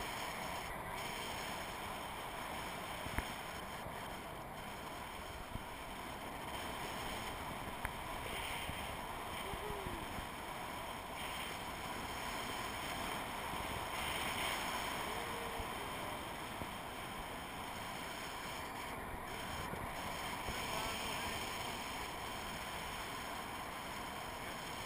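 Steady rush of wind over a GoPro microphone in flight under a tandem paraglider, with a few faint clicks.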